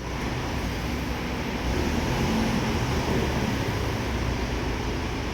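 Ford Fusion being driven, a steady rumble of engine and road noise with no distinct knocks, on a test drive with its front sway bar links removed to check whether the suspension noise changes.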